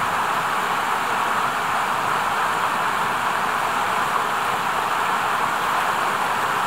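Mountain stream rushing over rocks, a steady, even hiss of water.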